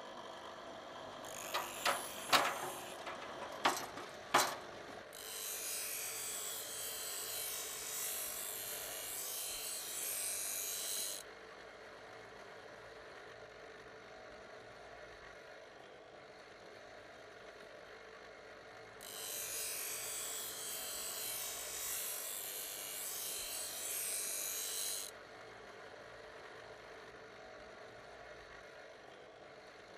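A handful of sharp clicks, then electric arc welding: two stretches of loud, steady crackling hiss, each about six seconds long, that start and stop abruptly, with a low steady background between.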